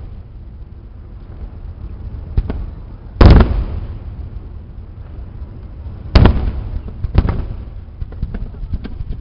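Aerial firework shells bursting: two loud booms about three seconds apart, each rolling away, with fainter bangs around them. Rapid small crackling pops follow near the end.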